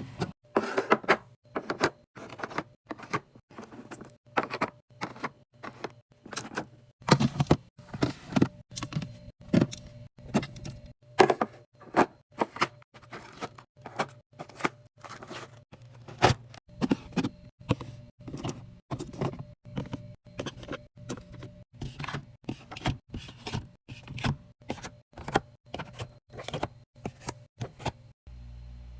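A mini fridge being restocked by hand: a quick, irregular run of clacks, taps and knocks as items are set down and packed in. The handling stops near the end, and a steady low hum remains.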